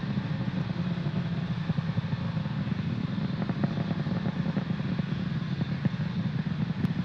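Falcon 9 first stage's nine Merlin engines during ascent: a steady low rumble with scattered crackle.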